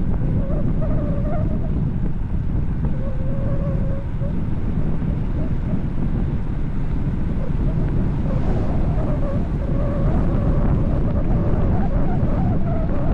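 Heavy wind buffeting the microphone of a bicycle descending at high speed, with a faint wavering whistle that comes and goes.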